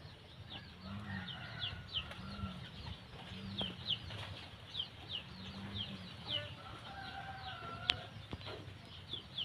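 Red junglefowl clucking with soft, low, rounded calls every second or so, now and then a longer drawn-out call. Short high chirps repeat in the background about twice a second.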